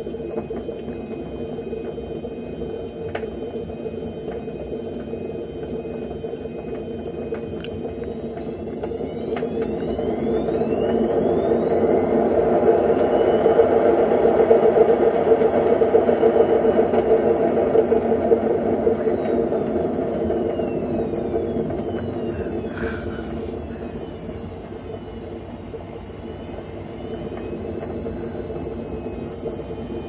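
Front-loading washing machine running: a steady hum that swells and grows louder for about fifteen seconds, with a high whine rising and then falling in pitch as the drum speeds up and slows again.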